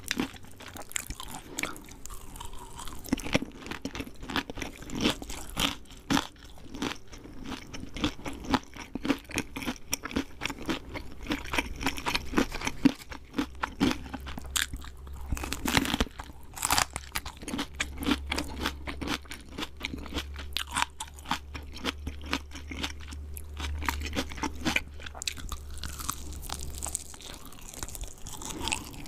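Close-up crunching and chewing of KFC fried chicken: the crisp breading crackles in a dense run of short crunches with each bite and chew.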